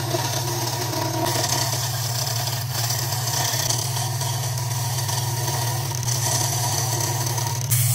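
Wood lathe running with a hand turning tool cutting a spinning black walnut pen blank: a steady motor hum under the uneven hiss of the cut.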